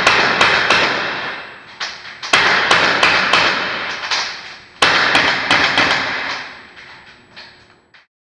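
Cybergun M&P9 gas-blowback airsoft pistol fired rapidly, about four sharp cracks a second, in three quick strings with brief breaks between them. Each shot rings briefly in the room, and the shots thin out toward the end.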